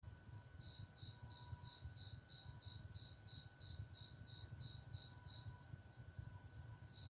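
Faint insect chirping: a high, short chirp repeated evenly about three times a second, fading out after about five seconds, with one more near the end, over a low hum and a faint steady whine.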